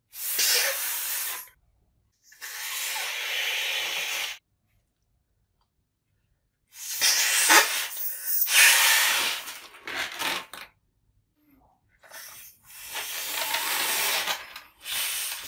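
A person blowing hard into long twisting balloons, first through the nose and then through the mouth, in four long hissing bursts of breath with silent gaps between them.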